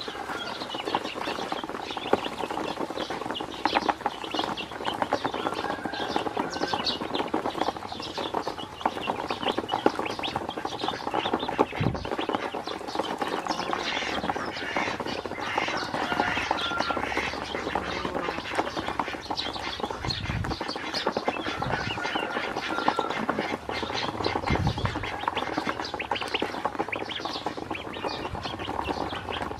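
Ducklings feeding from a plastic tub, their bills pecking and clicking rapidly and without let-up against the plastic bottom, with a few soft peeps.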